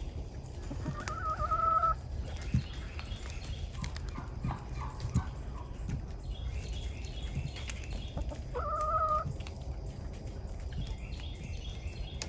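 Chickens clucking as they peck at a lard-and-seed suet treat, with small pecking clicks. Two drawn-out calls stand out, one about a second in and another about eight and a half seconds in.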